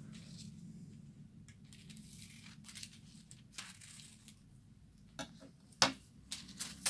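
Scissors cutting a length of gold hot-foil film from the roll: faint crinkly snips of the thin metallic film, then two sharp clacks near the end.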